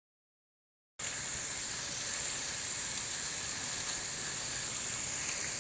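Silence for about a second, then a steady, high-pitched hiss.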